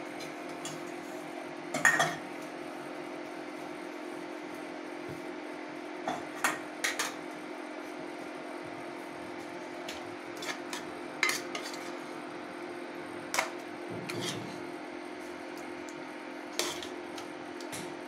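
A spoon knocking and scraping against an aluminium pressure cooker while thick curry is stirred and scooped out: scattered sharp clicks and clatters, the loudest about two seconds in, over a steady low hum.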